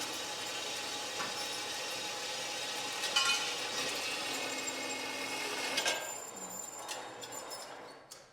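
Power cutting tool cutting through steel angle iron with a steady whine, then winding down and fading out over the last couple of seconds.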